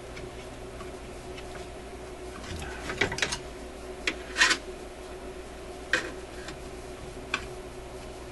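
Handling of metal screwdrivers against a radio's metal chassis and shield can: a few scattered clinks and scrapes over a steady low hum.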